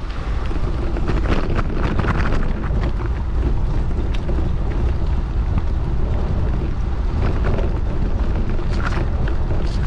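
Wind rumbling on the microphone over the steady running noise of a moving vehicle, with scattered short clicks and knocks.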